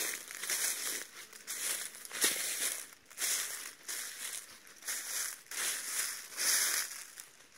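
Footsteps crunching through a thick layer of dry fallen leaves, one crunching step about every half second, tailing off near the end.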